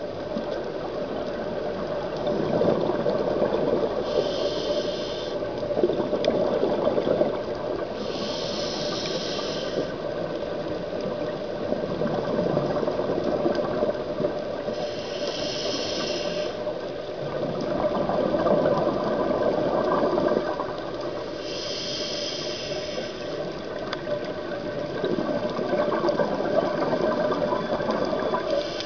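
A scuba diver breathing through a regulator, heard underwater: a short hiss on each inhale, five times about every six or seven seconds, with a churning rush of exhaled bubbles between them.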